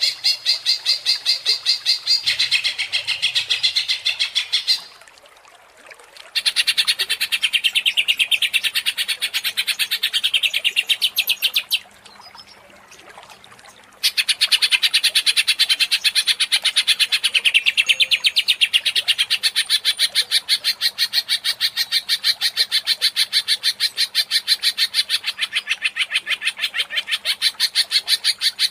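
Green leafbird (cucak ijo) singing long runs of rapid, evenly repeated high chattering notes: the agitated 'ngentrok' song used to provoke other cucak ijo into singing. The song breaks off twice for a second or two, about five and twelve seconds in.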